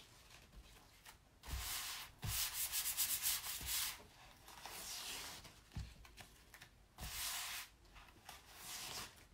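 Hands rubbing back and forth over a Chalk Couture adhesive silkscreen transfer in several scratchy bursts, the longest and quickest a couple of seconds in. The rubbing fuzzes up the transfer to take off some of its tack, so that it won't pull up paste already laid down.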